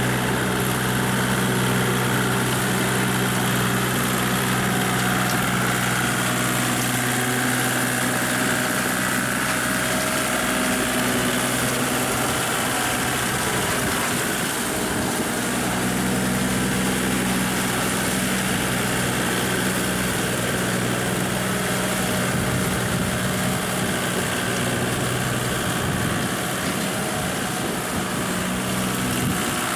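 Small Kubota tractor's diesel engine running steadily under load as it works a flooded rice paddy, its note wavering and fading briefly about halfway through.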